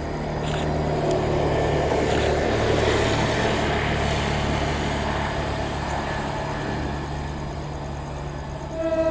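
Diesel locomotive engine running with a deep, steady hum that swells louder for a few seconds early on. A train horn starts sounding near the end.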